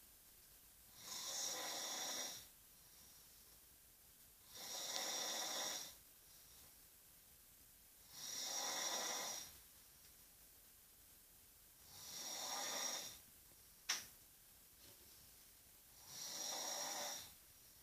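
Loud snoring in a slow, regular rhythm: five long, hissy snores, each lasting about a second, spaced about four seconds apart. A single sharp click comes between the fourth and fifth snores.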